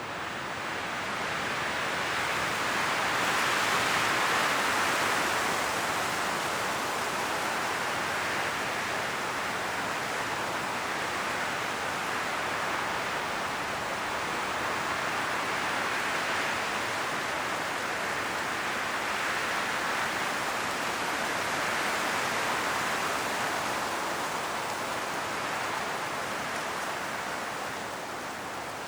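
Strong wind rushing through the leaves of forest trees in gusts that swell and ease: the loudest gust comes about four seconds in, with further swells later.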